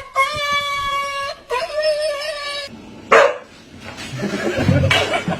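A dog howling in two long, steady notes, followed by shorter, rougher sounds in the second half.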